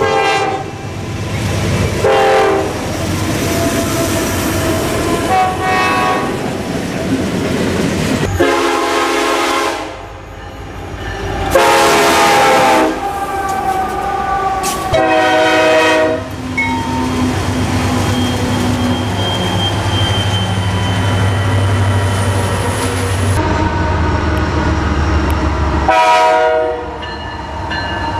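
Diesel locomotive air horns sounding again and again, each blast a second or two long, over the rumble of passing freight trains. The sound changes abruptly several times as one train pass cuts to the next.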